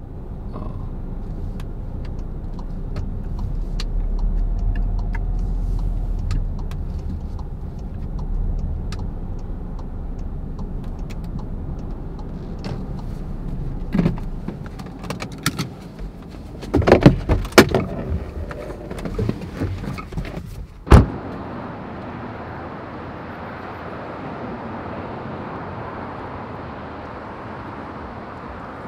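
Low steady rumble of a car's engine and road noise from inside the moving car. After a run of clicks and knocks, a car door shuts with one loud bang about three quarters of the way through, and a steady outdoor hiss follows.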